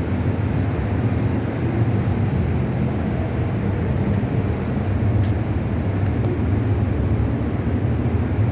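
Typical industrial sewing machine with a servo motor, running steadily with a continuous low hum.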